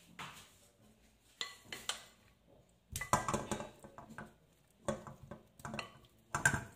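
Raw pork rib pieces scraped with a wooden spatula from a glass bowl and dropping into an empty stainless steel pan: a series of knocks and clatters at irregular intervals, the loudest about three seconds in.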